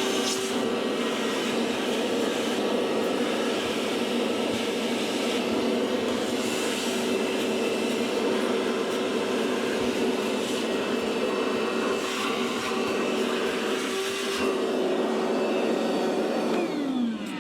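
Vacuum cleaner running steadily, sucking loosened grease buildup out of the inside of a dishwasher. Near the end it is switched off and its motor pitch falls as it winds down.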